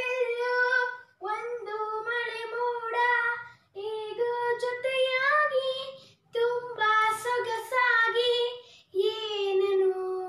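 A boy singing a song unaccompanied, in phrases of two to three seconds with short breaks for breath between them.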